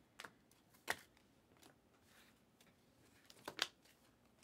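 Panini Optic trading cards being flipped through by hand: a few short clicks of card edges sliding and snapping off the stack, one about a second in and a quick pair near the end, faint quiet between them.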